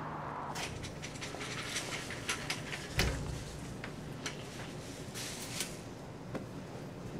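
Laundromat sounds: a wire laundry cart rattling and clothes being handled, with irregular clicks and clatter and one louder thump about three seconds in, over a steady low hum of the machines.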